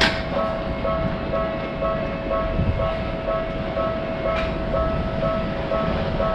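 Railroad crossing warning bell ringing in an even rhythm, about three strikes a second, over the steady running noise of a passing train.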